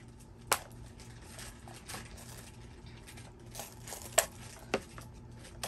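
Hands working at a plastic LOL Surprise ball and its wrapping: light rustling with several sharp plastic clicks, the loudest about half a second in and about four seconds in.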